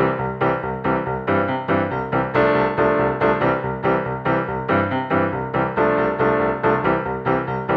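Music played on a piano-like keyboard: repeated chords struck at a steady, quick pulse.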